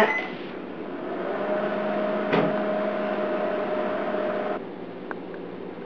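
Microwave oven running on a wet towel, a steady hum joined about a second in by a steady whine. A single click comes a little past the middle, and the running sound drops away about four and a half seconds in.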